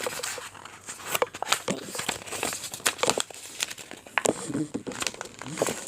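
Sheet of thick paper being folded and creased by hand: irregular crinkling and crackling rustles.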